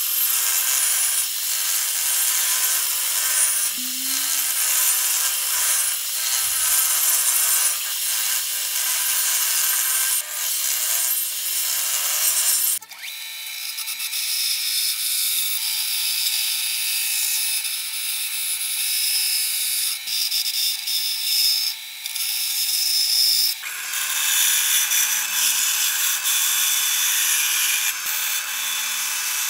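Table saw ripping an edge-glued pine panel. About halfway through the sound changes abruptly to a band saw cutting pine pieces, with the blade running through the wood.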